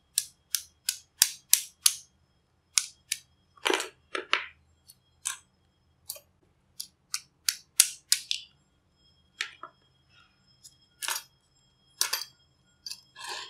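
Thin steel E-I core laminations of a small step-down transformer being pried out with a screwdriver and knocked against each other: a run of sharp metallic clicks and clinks, some in quick succession and some with pauses between, a few ringing briefly.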